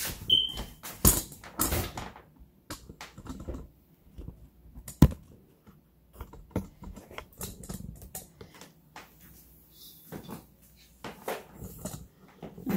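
Scattered light knocks and clicks from a phone camera being handled and carried around a kitchen, with one sharper knock about five seconds in.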